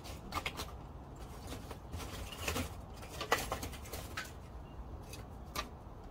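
Pieces of lump charcoal clinking and knocking against each other as they are stacked by hand around lit fire starters in a charcoal grill's fire bowl, in scattered, irregular clicks.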